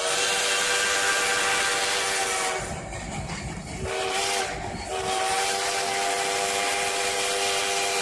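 Steam locomotive's whistle blowing, several tones sounding together: a long blast, a short one about four seconds in, then another long blast, over the rumble and hiss of the moving train.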